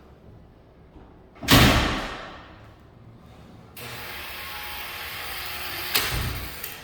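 A heavy commercial exterior door slams shut once, loud, with a ringing decay that lasts about a second. About two seconds later a steady rushing noise starts abruptly, and a second, smaller bang comes near the end.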